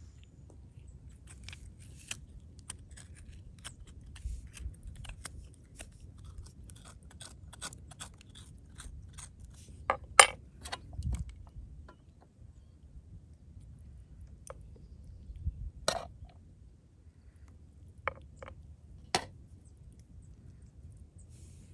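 Knife cutting into and hollowing out a ripe tomato: small crunching and scraping sounds with scattered sharp clicks, the loudest about ten seconds in.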